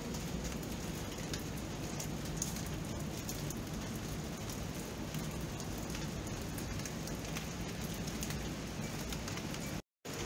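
Steady rain falling, with many small drop ticks over an even hiss. The sound drops out completely for a split second near the end.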